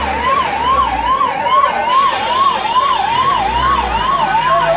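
Emergency-vehicle siren sounding a fast rising-and-falling wail, about two sweeps a second, over the low rumble of vehicle engines.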